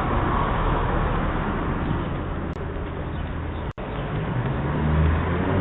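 A motor vehicle running, heard through a doorbell camera's narrow-sounding microphone. A low hum grows louder near the end, and the sound drops out briefly twice.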